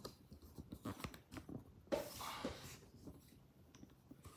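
Faint handling noise: scattered small clicks and rustles, with one louder, hissy rustle lasting under a second about two seconds in.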